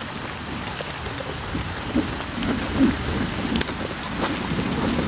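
Steady outdoor noise: an even hiss over a fluctuating low rumble, with a couple of faint clicks in the second half.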